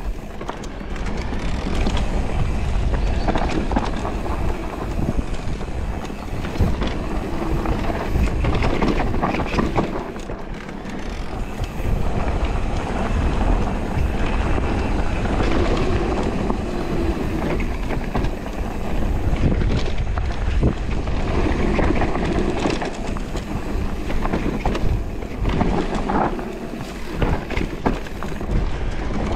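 Radon Deft e-mountain bike riding down a dirt trail covered in dry leaves: continuous tyre noise on dirt and leaf litter, with the bike rattling and knocking over bumps many times, and wind on the microphone.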